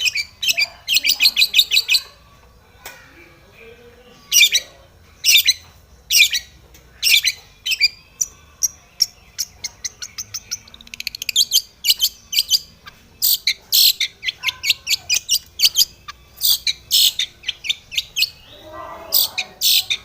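Long-tailed shrike (cendet) singing: runs of rapid, harsh, high chattering notes, several a second, broken by short pauses.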